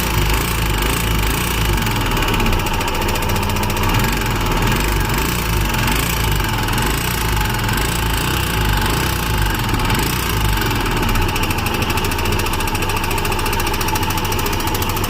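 Royal Enfield Himalayan BS6's 411 cc single-cylinder engine running steadily with a fast, even mechanical ticking clatter. This is the engine noise the owner treats as a problem.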